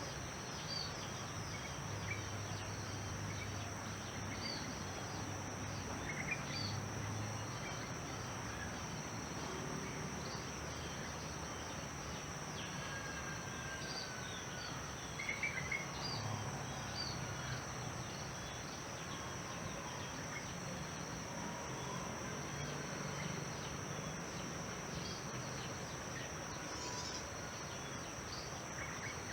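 Steady high-pitched insect drone, like crickets, with scattered short bird chirps and a low distant hum underneath.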